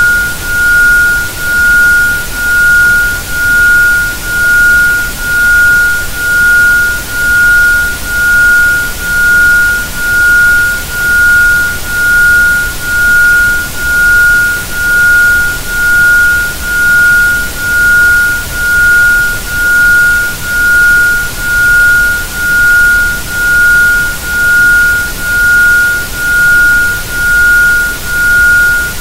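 Isochronic tone: a pure 1430.71 Hz sine tone pulsing on and off about once a second (1.05 Hz), over a steady background noise hiss.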